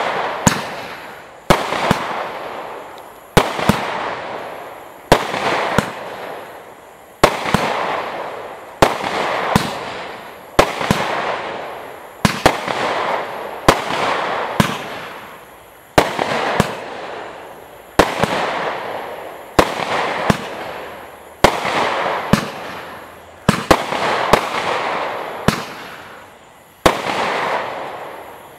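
Total FX Starshine firework cake firing a steady sequence of about sixteen shots, one every two seconds or so. Each is a sharp bang followed by a hiss that fades away before the next shot.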